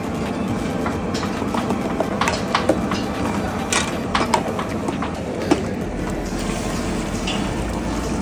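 A long metal ladle stirring mutton in a large brass cooking pot, scraping and clinking against the metal, with a string of sharp knocks from about one to five and a half seconds in, over a steady rushing noise.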